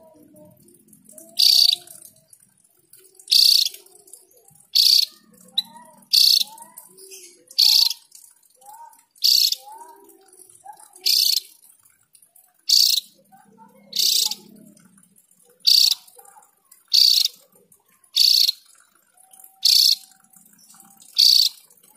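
Javan grey-throated white-eye (opior jawa) giving a short, sharp, high call fourteen times at a steady pace, about once every second and a half.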